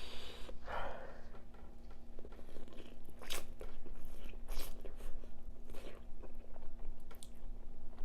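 A person chewing food very close to the microphone, with several sharp, wet mouth clicks about a second or so apart.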